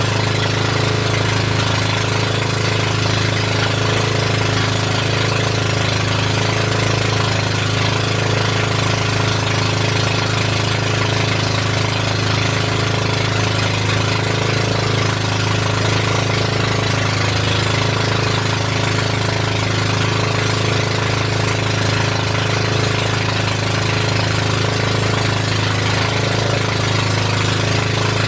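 Boat engine running steadily at a constant speed, a loud low drone with a rattling edge.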